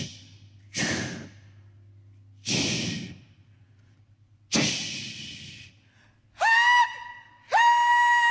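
A singer's voice imitating a steam train into a microphone. Three slow, breathy hissing chuffs come about two seconds apart. Then, from about six seconds in, a short high wail and a long held one sound like a train whistle.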